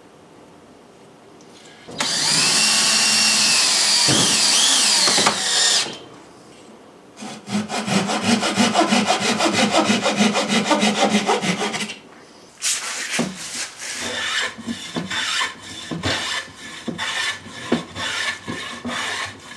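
A hand saw cutting through wood in rapid, even strokes, after a loud steady scraping of about three seconds. Then a rasp works along a board's edge in slower, uneven strokes.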